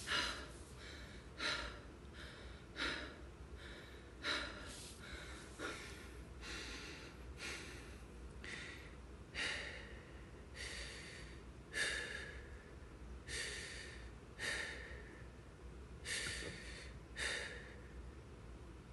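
A man breathing hard to catch his breath after a set of exercises, with short, heavy breaths in and out about every second and a half.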